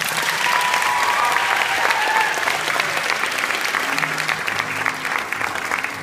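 Audience applauding: dense, steady clapping from a theatre crowd.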